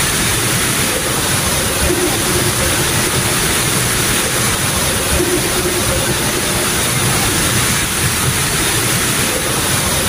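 Water rushing and splashing over rocks in a small cascading stream, a steady, even rush.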